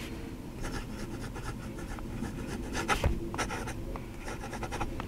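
14k gold nib of a vintage Howard fountain pen scratching across paper in short strokes as a word is written, with a couple of sharper ticks about three seconds in.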